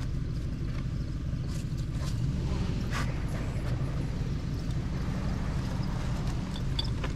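A motor running steadily with a low rumble, with a few faint knocks about two to three seconds in.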